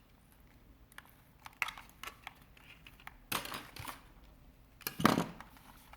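Small clicks and scraping from handling a Logitech G Pro X Superlight mouse's plastic shell during disassembly, with two louder scratchy rustles about three and five seconds in.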